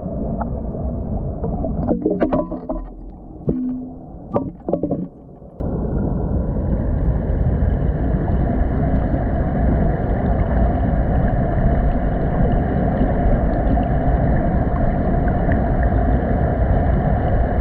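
A few scattered knocks and clicks, then about five and a half seconds in a loud, steady motor-like drone starts suddenly and runs on unchanged.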